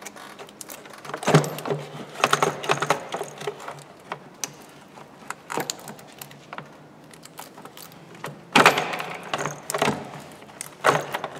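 Plastic clicks, knocks and rattles of a car's air filter housing and engine-bay parts being handled and lifted away, in several separate bursts with the loudest cluster past the middle.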